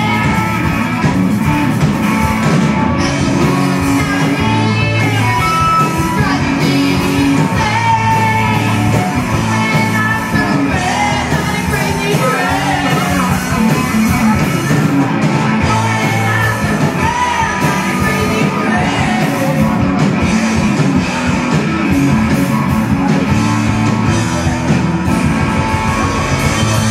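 Rock band playing live: electric guitars, bass and drums with a singer, heard loud through the hall's PA.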